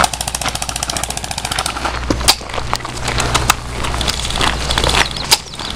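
Airsoft gun firing a rapid full-auto burst of about a second and a half, the shots ticking quickly and evenly, followed by three single sharp cracks spread over the next few seconds.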